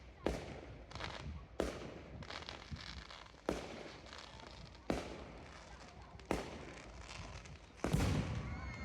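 Fireworks going off: a series of sharp bangs roughly every one to two seconds, each followed by a fading rumble and crackle.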